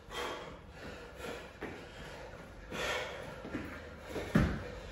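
Heavy, breathy panting and puffs of exhalation from men exerting themselves through burpees, with one dull thud about four and a half seconds in as a body lands on the rubber gym mat.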